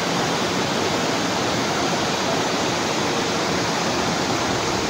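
Floodwater rushing down a street in a fast muddy torrent, a loud steady wash of water noise with no let-up.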